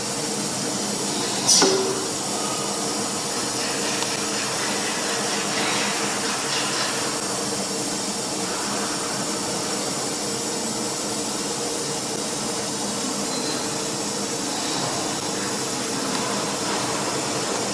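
Steady machine hum and hiss from a CNC router during its automatic tool-length measurement at the tool setter, with one short click about one and a half seconds in.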